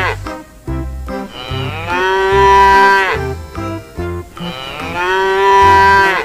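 Cow mooing: the same long, drawn-out moo heard twice in full, about three seconds apart, the tail of an earlier one ending right at the start, over quiet background music.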